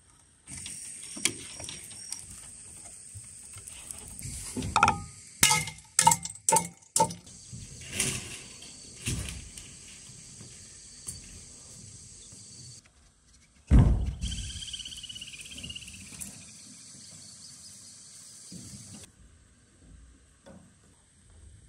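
Steady high buzzing of insects, with several sharp knocks of bamboo poles being handled and one heavy thud well past halfway.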